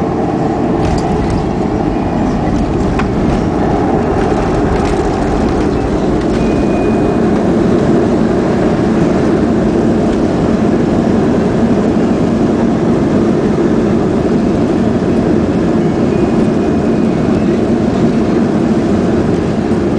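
Steady rumble inside the cabin of a Boeing 737-400 rolling on the ground after landing: its CFM56 engines running and the landing gear wheels rumbling, with a few light rattles in the first few seconds.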